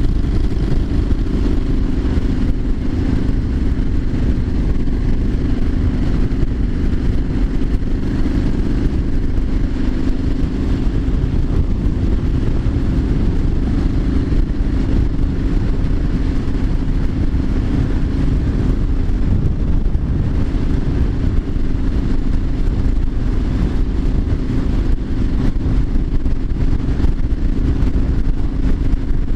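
Triumph Street Scrambler 900's parallel-twin engine running at a steady cruise, its note holding constant with no change in revs.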